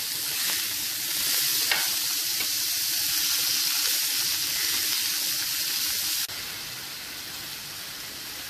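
Veal steaks sizzling as they sear in hot oil in a frying pan, with one sharp click just under two seconds in; the sizzle steps down quieter about six seconds in.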